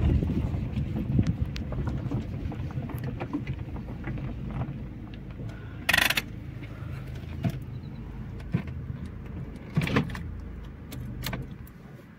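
Car heard from inside the cabin, driving slowly over rough dry reservoir bed: a steady low engine and tyre rumble with rattles and a few sharp knocks, the loudest about six and ten seconds in. The rumble fades near the end.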